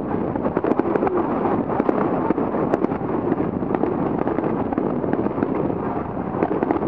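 Aerial firework shells bursting, a dense, unbroken run of sharp cracks and pops.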